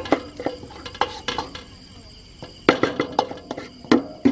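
Metal spoon clinking and scraping against a bowl while stirring a wet chili-ginger-garlic marinade, in irregular sharp clinks that ring briefly. Crickets chirp steadily behind.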